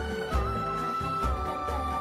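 Background music: a held, slightly wavering melody line over a steady low drum beat about twice a second.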